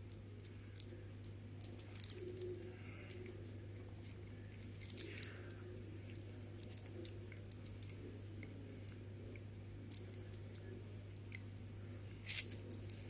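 Heat-shrink tubing being worked by hand over a screwdriver shaft: faint irregular scratching and small clicks of plastic and metal, with a sharper click near the end, over a steady low hum.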